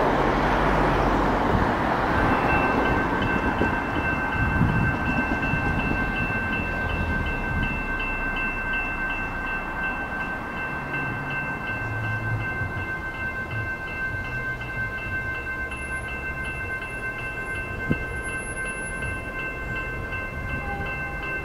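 Railway level-crossing warning bell ringing with rapid, even strokes, about two a second, starting about two seconds in, signalling an approaching train. A rushing noise fades over the first few seconds.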